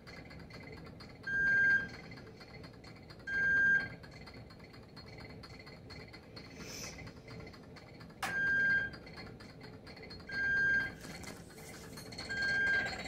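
Electronic beeper from lab equipment sounding a short, high, steady beep. Two beeps come about two seconds apart, then after a pause of about four seconds three more at the same spacing. A faint steady high whine sits underneath.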